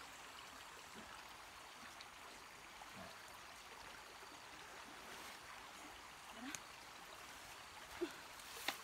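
Faint, steady running water, a small stream or trickle, with a few brief small sounds near the end.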